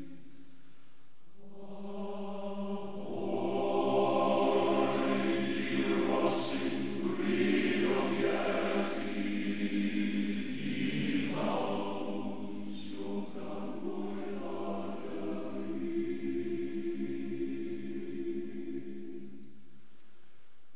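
A choir singing slow, sustained chords as background music. A new phrase begins about a second and a half in, swells loudest in the middle, and eases off near the end.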